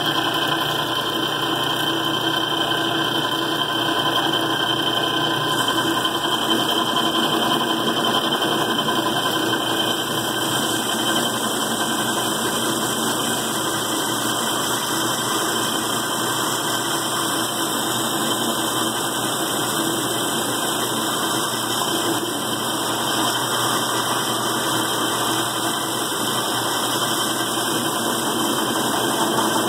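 Small, worn-out metal lathe running steadily while taking a cut on a part being turned to a press fit.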